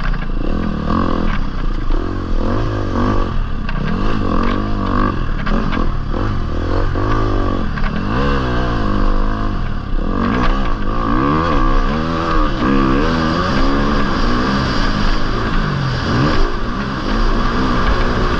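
Off-road motorcycle's engine being ridden hard, revving up and dropping back over and over, its pitch rising and falling every second or two.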